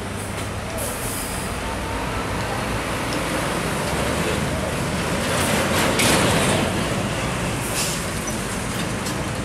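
Heavy diesel trucks passing close by: a Hino 500 tanker truck goes past, followed by an older cargo truck, engines and tyres loudest about six seconds in with a brief hiss.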